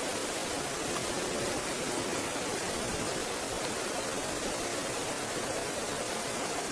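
Steady, even rushing hiss with no breaks or strokes.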